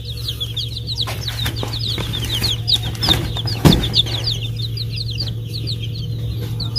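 Many young chicks peeping in a brooder cage: a dense, continuous run of short, high, falling peeps. A steady low hum runs underneath, and there is one sharp knock a little past halfway.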